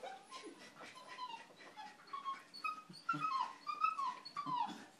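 A Brittany spaniel screaming off to the side: a run of short, high-pitched whining cries, each falling in pitch, coming faster and louder in the second half.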